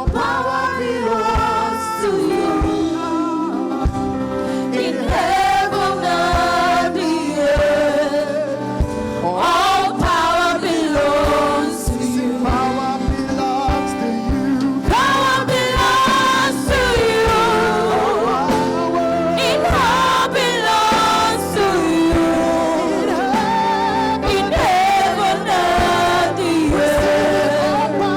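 Gospel music: voices singing together over a steady instrumental backing with a beat.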